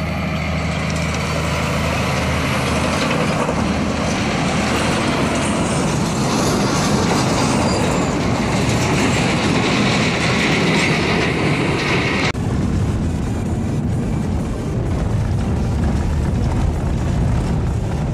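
A multi-trailer road train driving past close by on a gravel road: diesel engine note at first, then the long run of trailers and tyres on gravel, loudest about two-thirds of the way through. About twelve seconds in it cuts abruptly to the steady road rumble inside the cabin of a Land Rover Discovery Sport driving on a dirt road.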